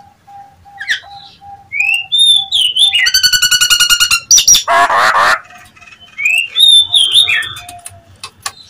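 Nias hill myna calls played as a lure call: clear gliding whistles, a harsh rasping burst about three seconds in, then a loud screech, followed by more whistles. A soft repeated low piping note runs through the first few seconds.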